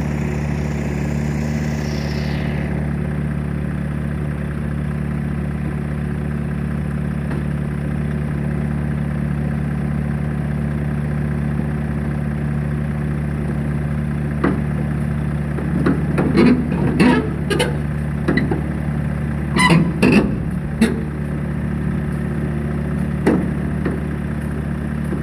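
Heavy diesel engine idling steadily with an even low hum. About two-thirds of the way through, a run of sharp knocks and clatters, then one more knock near the end.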